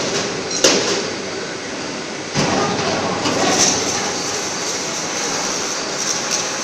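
Steady factory-floor machinery noise, broken by two sharp knocks, one about half a second in and one near two and a half seconds.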